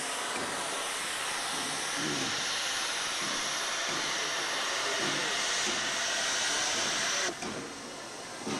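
Steam locomotive FS 740.278 (an Italian class 740 2-8-0) hissing loudly and steadily as steam escapes low at the front, from the cylinder drain cocks. The hiss cuts off abruptly near the end.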